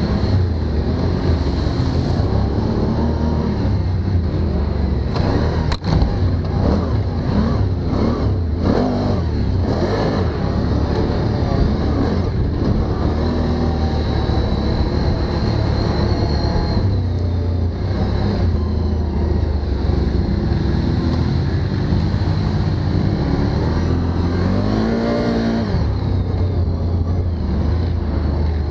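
Can-Am Outlander MAX 1000 ATV's V-twin engine running while riding a rough sandy trail, its pitch rising and falling with the throttle. A sharp knock about six seconds in.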